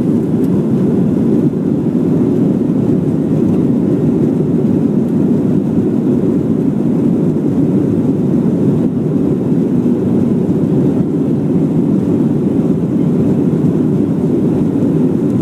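Cabin noise in a KLM Airbus A330 during take-off: the engines and rushing air make a steady, loud, low noise that holds even throughout.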